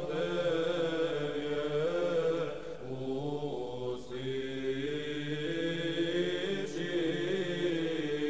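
Slow vocal chant: long held sung notes that shift slowly in pitch over a steady low note.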